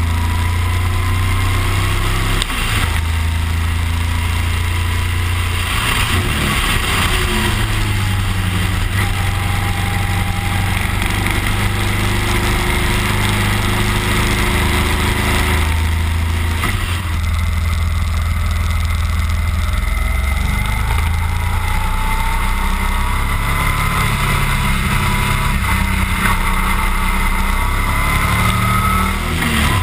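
Cruiser motorcycle's engine running under way, its pitch changing as it is shifted and rising in places as it accelerates, with heavy wind noise on the onboard microphone.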